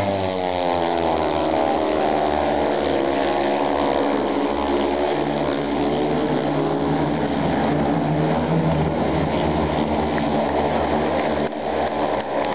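Speedway bikes racing round the track, their 500cc single-cylinder methanol engines running hard together. The pitch sags about a second in and climbs back as the riders go through a bend, and the sound eases a little near the end.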